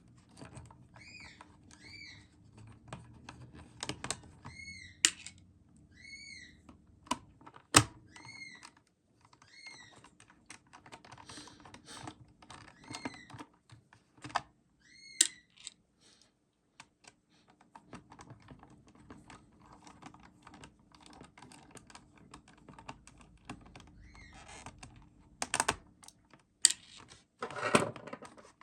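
Small tool and plastic parts of a Panasonic RQ-V150 personal cassette player clicking and tapping as its casing is unscrewed and opened. Short high squeaks, often in pairs, recur throughout, with a few sharper knocks, the loudest about eight seconds in and more near the end.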